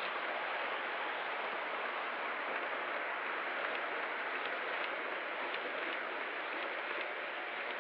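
Steady rushing rumble of O scale model trains rolling on the layout's three-rail track, with a few faint clicks.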